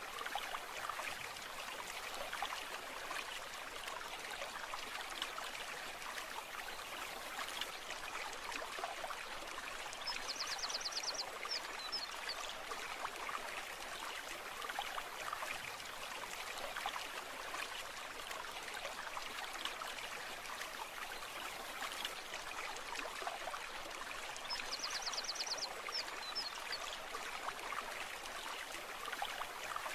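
A shallow stream flowing and trickling steadily over stones. Twice, a short high trill about a second long rises above the water.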